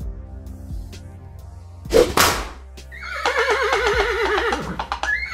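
A whip crack about two seconds in, followed by a horse whinnying for about a second and a half, its call wavering and falling. A steady music bed runs underneath.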